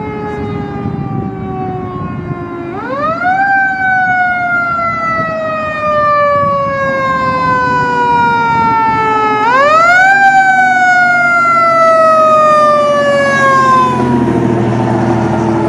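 Fire quint's mechanical siren wound up twice, each time rising quickly to a high wail and then slowly winding down, about seven seconds apart. Near the end the wail dies away and the truck's engine rumbles as it drives past.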